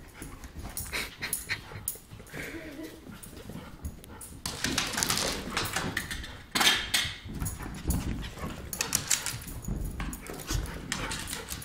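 Two dogs, a small West Highland white terrier and a larger dog, play-fighting and chasing: dog noises mixed with scuffling, made up of many short sharp sounds in an irregular run, loudest about six and a half seconds in.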